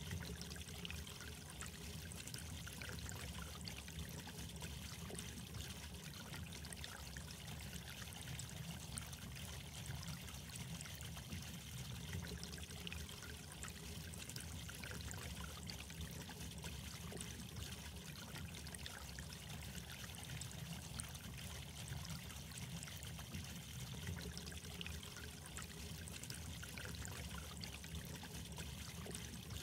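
Soft, steady trickling water with a fine patter of tiny splashes and no pauses.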